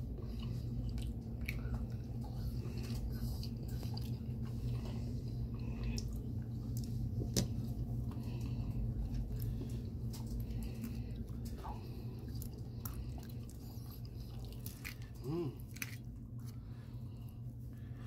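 A person chewing and biting a mouthful of cooked okra and curry, with scattered sharp clicks of a metal fork against a plate, over a steady low hum. A short pitched sound stands out about fifteen seconds in.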